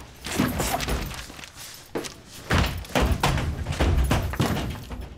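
Toilet stall door banging and thudding several times at an uneven pace, most densely in the middle stretch.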